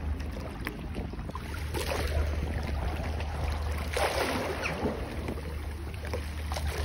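Harbour water lapping and sloshing against the stone quay and moored boats, in irregular swells, over a steady low rumble.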